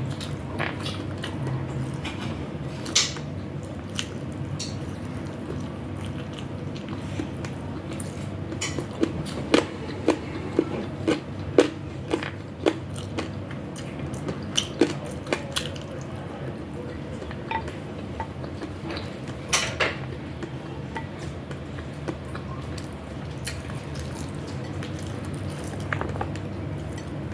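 Eating sounds of a chicken wing, egg and rice meal: chewing and biting, with sharp clinks of a spoon or cutlery on a plate, thickest about a third of the way in and again near two-thirds. A steady low hum runs underneath.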